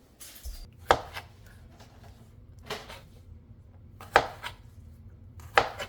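A knife chopping on a cutting board: four separate strikes about a second and a half apart, over a low steady hum.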